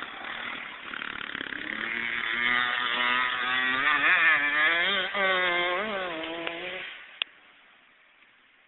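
Small dirt bike engines racing, pitch rising and falling several times as the riders work the throttle, growing louder toward the middle, then cutting off abruptly about seven seconds in.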